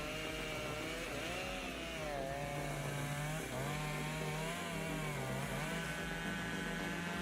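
An engine running steadily under varying load, its pitch wavering up and down over and over.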